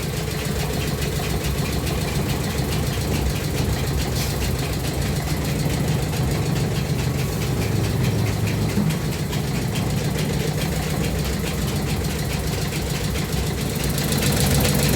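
Flour mill machinery running steadily: an engine-like drone with a fast, even knocking, getting a little louder near the end.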